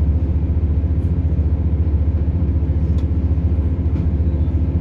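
Interior of a British Rail Class 170 Turbostar diesel multiple unit on the move: the steady low rumble of its underfloor diesel engines and running gear, with a few faint ticks.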